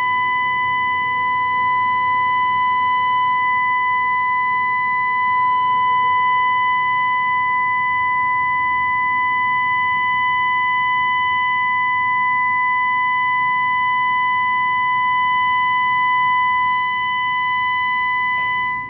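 All-clear siren sounding one steady tone that does not rise or fall, the signal that an emergency is over and normal conditions are restored. It cuts off near the end.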